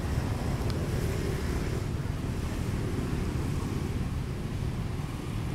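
Wind buffeting the microphone: a steady, flickering low rumble.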